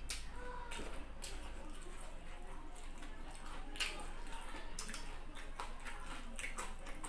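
A person eating fried chicken and rice by hand: chewing and mouth smacking, with irregular small clicks.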